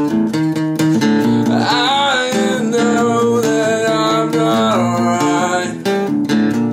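Music: strummed acoustic guitar chords in a steady rhythm, with a gliding melody line over them from about one and a half seconds in until nearly five seconds in.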